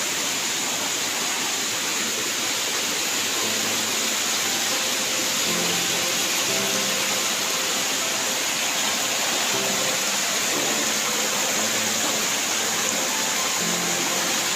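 Steady rushing of a large waterfall, with faint music notes coming in a few seconds in.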